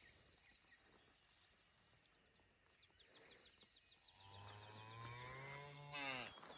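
A cow mooing once, a single long low call of about two seconds that starts roughly four seconds in and falls in pitch at the end. A bird trills faintly behind it.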